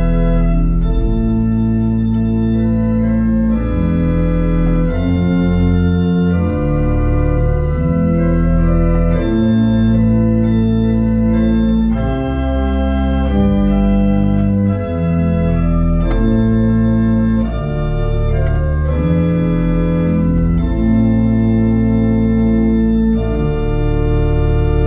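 Pipe organ playing a slow run of held chords over a deep bass, the chords changing every second or two.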